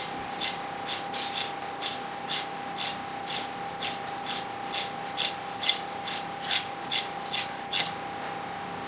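Honekiri knife chopping through the fine bones of a pike conger (hamo) fillet on a cutting board: crisp 'shari, shari' strokes about twice a second, louder from about five seconds in, stopping near the end. A faint steady tone runs underneath.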